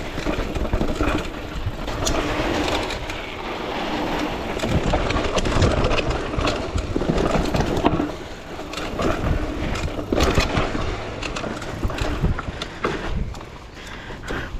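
An enduro bike rolling fast over rough trail: tyres crunching over dirt and rocks, with a steady run of irregular knocks and rattles as the bike goes over bumps.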